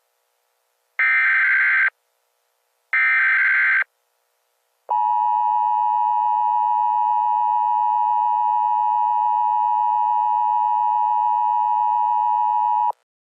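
Emergency Alert System header bursts: two short warbling data bursts of about a second each, a second apart. After a short pause comes the steady two-tone EAS attention signal, held for about eight seconds before it cuts off. Together they announce that an emergency alert message follows.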